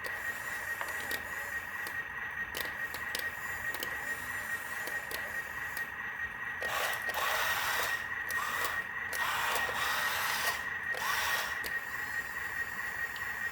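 Small electric motor and gearbox of a toy RC truck whirring with a steady high whine, with three louder bursts of noise between about seven and eleven seconds in.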